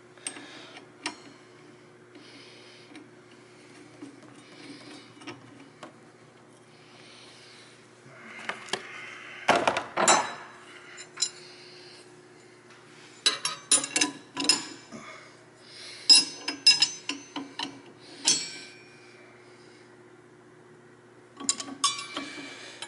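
Hand tools and metal parts clinking and rattling against the blade and brake mechanism inside a SawStop table saw, with the saw switched off. There are scattered single clinks, then bursts of clatter about halfway through and several more toward the end.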